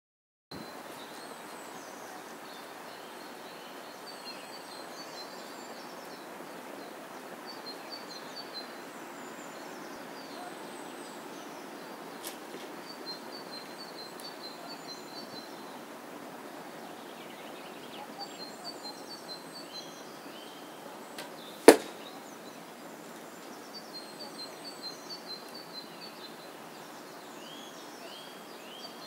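An arrow striking the target with one sharp, loud smack about three quarters of the way through, over birds chirping and a steady outdoor hiss.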